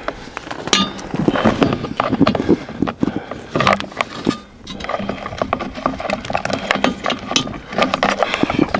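Irregular clicking and knocking of a black plastic jackpad and its fixing being worked onto a caravan's galvanised metal corner steady foot by hand.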